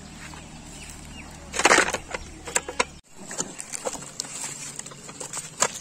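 Dry leaves crackling and rustling as a landed fish thrashes and is shoved over them, with one loud crunching burst about one and a half seconds in and a few sharp taps and slaps after it.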